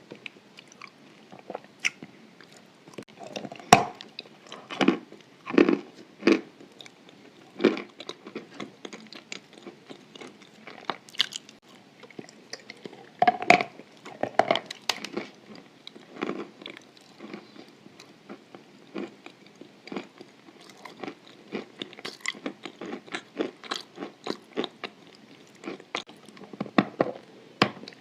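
A person biting and chewing chalk dipped in white clay paste close to the microphone. Irregular crisp crunches and snaps with chewing in between; the loudest bites come about 4, 6 and 13 seconds in.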